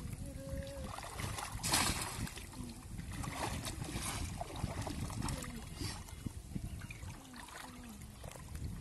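Shallow water sloshing and splashing as people wade through weedy water and push bamboo fish traps down into it, with irregular splashes and the loudest about two seconds in.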